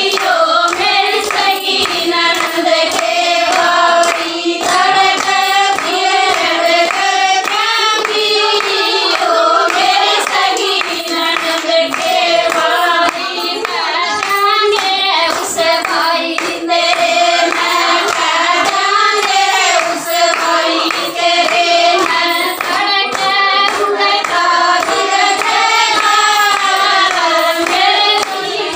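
Women singing a Haryanvi jakri folk song, with steady hand-clapping keeping the beat.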